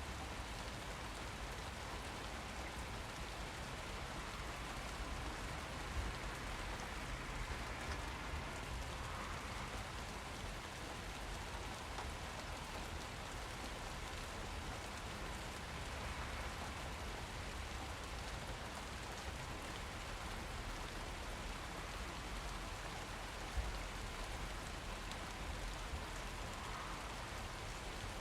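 Steady rain falling and pattering on surfaces, an even hiss with a low rumble underneath and a couple of slightly louder drops or splashes about 6 seconds in and near the end.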